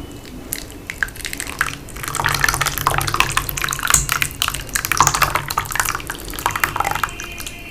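Close-miked wet eating sounds: dense irregular clicks and squelches of chewing and handling saucy curry and rice.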